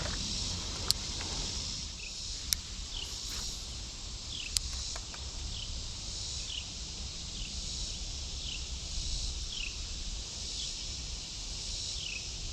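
Steady high buzzing of an insect chorus, with a short falling chirp repeating about once a second. Three sharp clicks come in the first few seconds.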